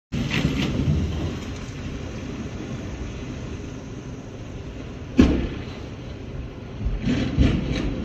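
Cars sliding on an icy street and knocking into one another: a low rumble, with a sharp thump about five seconds in and a few more thumps near the end.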